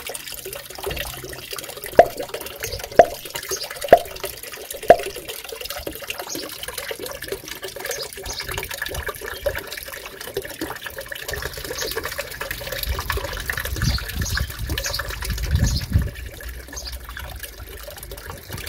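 Small fountain pump's water jets splashing and trickling steadily into a shallow turtle tank. Four sharp knocks come about a second apart starting about two seconds in, and a low rumble rises near the end.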